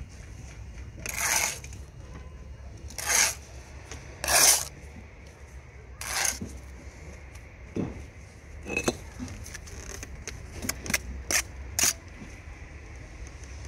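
Steel brick trowel scraping mortar across blue engineering bricks in four short strokes, then a run of sharp taps and clicks of the trowel on the bricks, over a low steady background rumble.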